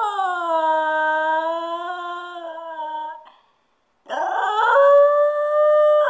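Jack Russell terrier howling from being left home alone. A long howl slides down in pitch, holds, and breaks off a little over three seconds in; after a pause of under a second a second, higher howl begins and holds.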